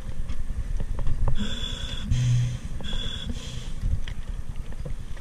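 Dive boat's engine rumbling low and steady, with four short hissing spurts between about one and a half and three and a half seconds in.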